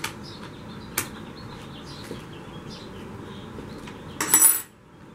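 A small steel wrench clicking sharply against the bar nut of an electric pole chainsaw twice, then a brief loud metallic clatter with a ringing about four seconds in as the wrench is set down on a tile floor.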